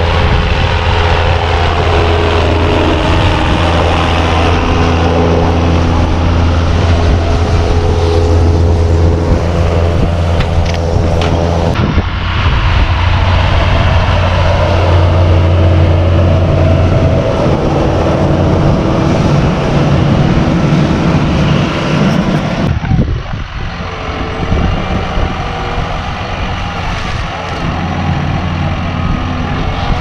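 John Deere 6930's six-cylinder diesel running at steady revs while it powers a Kuhn combi baler-wrapper through silage, the engine's hum mixed with the baler's mechanical running noise. The engine note changes abruptly twice.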